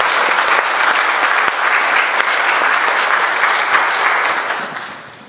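Audience applauding, a dense even clapping that fades away near the end.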